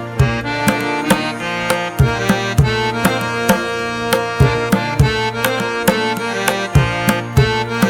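Background music: a melodic instrument over a steady hand-drum beat.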